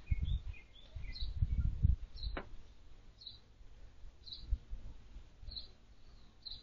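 Small birds chirping in short high calls, roughly once a second, over bursts of low rumble, with one sharp click a little over two seconds in.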